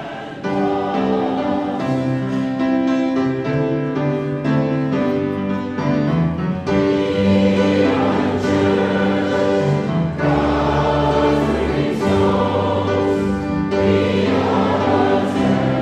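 A choir singing choral music in held chords. It grows fuller about half a second in.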